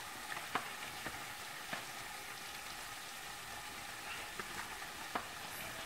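A few light, scattered taps and clicks of a spoon against a plastic colander and pot as cooked pasta is scooped out, over a steady quiet hiss.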